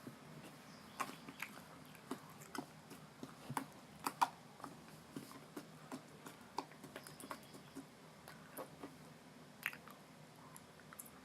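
Slime being squeezed and worked by hand, giving an irregular run of small wet clicks and pops, a couple a second, with the loudest about four seconds in.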